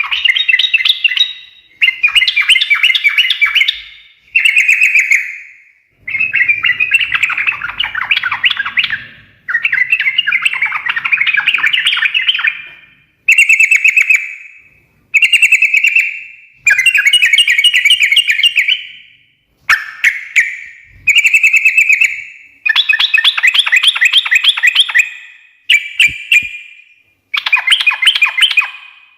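Yellow-vented bulbul (trucukan) singing in a loud, continuous chattering run: bursts of rapid, bubbly notes, each lasting a second or two, separated by short pauses.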